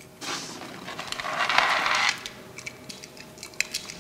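A pocket watch and chain being handled: a spell of rustling about a second in, then small light metallic clicks and clinks.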